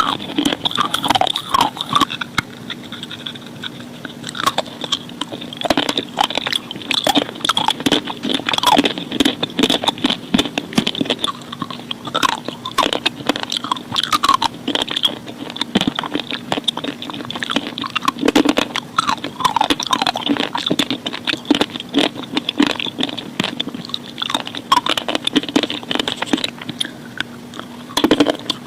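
Close-up crunching and chewing of chalk and slate pencil: a steady run of sharp, gritty bite-crunches with chewing between them. A faint steady hum sits underneath.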